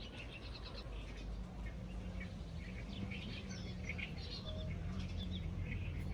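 Small birds chirping, short calls scattered throughout, over a low steady background rumble.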